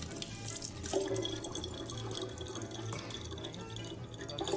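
Water running steadily from a kitchen tap in a thin stream, splashing over a cat's head and pouring into the neck of a large plastic water bottle.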